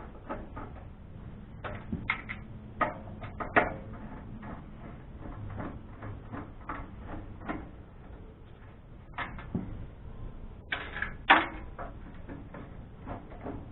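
Hand tools working on a desktop computer's metal case to get the power supply out: a run of small clicks and taps, with a few louder metal clanks about two to four seconds in and again near the end.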